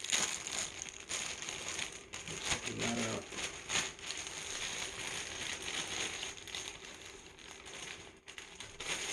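Wallet's wrap packaging being pulled open and unwrapped by hand: continuous irregular crinkling and rustling.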